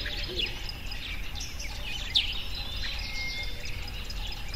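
Small songbirds chirping in quick short calls, the loudest about two seconds in, with a thin held whistle a little after three seconds, over a steady low rumble.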